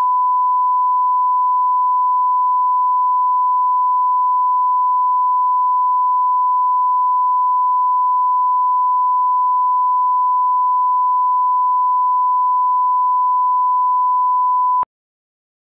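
1 kHz reference test tone played with colour bars: one steady pure beep at a single pitch that cuts off suddenly about a second before the end.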